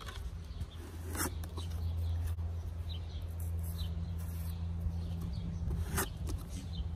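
Rubber grout float scooping grout from a plastic bucket and scraping it along cement tile edges, with two sharp scrapes, one about a second in and one near the end, over a steady low hum.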